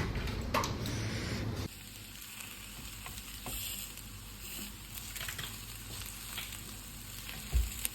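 Food frying in a pan, a steady sizzle with scattered crackles and occasional stirring sounds; it drops abruptly to a quieter sizzle a little under two seconds in.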